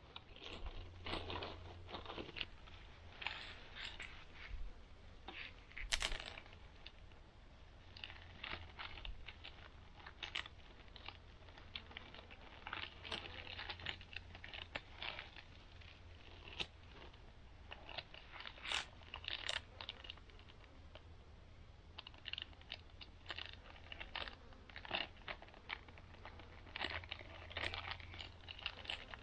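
Close rustling and crinkling of items being handled, a stream of short irregular crackles and clicks, over a steady low hum.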